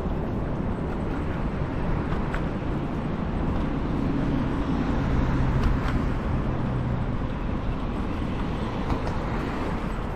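Steady rumble of a scooter riding along, with road or path noise and wind. A low hum swells and fades around the middle.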